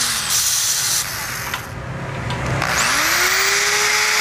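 Drill press drilling out a carburetor air screw whose head is stripped. The motor winds down just after the start, then spins back up a little under three seconds in and runs steadily.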